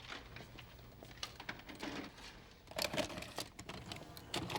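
Faint scattered clicks and rustling, with a few small knocks about three seconds in and just before the end.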